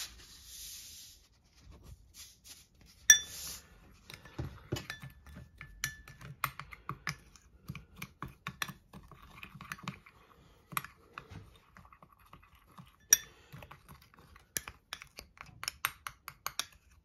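Metal spoon stirring dry seasoning in a small glass bowl, clinking and scraping against the glass in quick irregular taps, with two sharper clinks about three seconds in and about thirteen seconds in.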